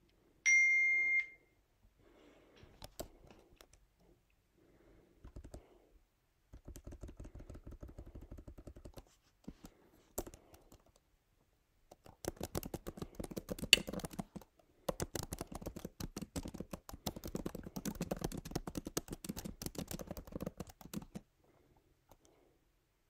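A short electronic beep about half a second in, then rapid typing on a computer keyboard in runs of a few seconds with pauses between.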